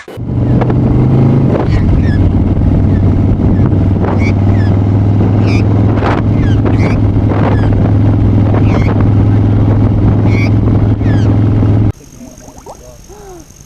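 An engine running steadily at a constant low pitch, then cut off abruptly about twelve seconds in, leaving a much quieter background.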